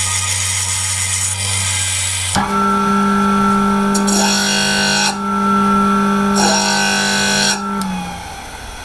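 Bench grinder grinding a steel drill bit with a steady hum and hiss. About two seconds in it gives way to a disc sander motor running with a steady hum, rasping louder twice as a piece of steel is pressed to the disc. Near the end the sander is switched off and winds down, its pitch dropping.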